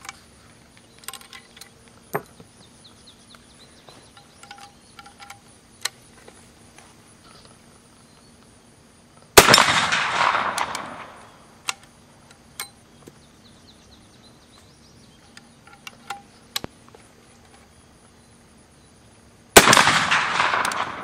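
Two shots from a Pedersoli reproduction Remington Rolling Block single-shot rifle, about ten seconds apart. Each is a sharp report followed by roughly two seconds of fading echo. Faint metallic clicks come between the shots as the rolling-block action is worked and reloaded.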